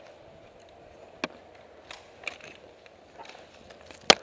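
Scattered sharp snaps of airsoft gunfire, a few single shots in the first half and one loud crack near the end.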